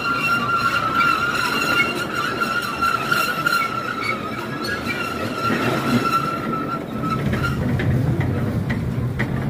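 Train running along its track with a steady low rumble, and a high steady squeal over it, typical of wheels grinding on a curve. The squeal fades out about seven seconds in.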